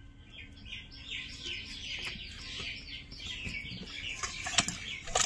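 Small birds twittering in fast runs of short, high chirps. A few sharp clicks come near the end.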